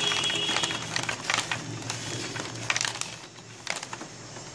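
A cloth rubbing and wiping on an Epson L565 printer's ADF scanner glass strip, with irregular scuffs and small plastic clicks from handling. The strip is being wiped clean of dust that made the ADF sensor falsely detect paper.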